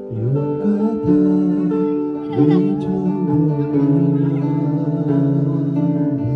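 Acoustic guitar playing a song, with a voice singing along.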